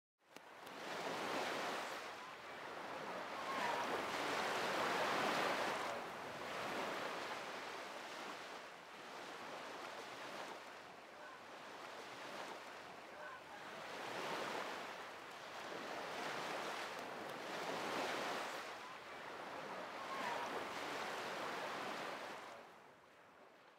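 Waves washing on open water, swelling and falling away every few seconds, fading out near the end.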